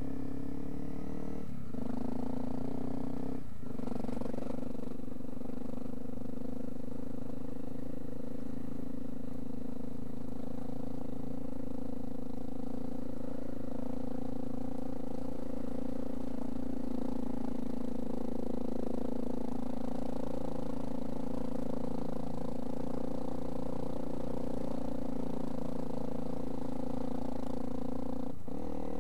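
Trail motorcycle engine running steadily as the bike rides along a gravel track, its note dipping briefly about a second and a half in, again at about three and a half seconds, and near the end.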